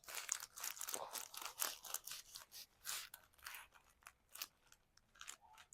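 Faint rustling and crinkling: many short, scratchy sounds, thick in the first two seconds and sparser after.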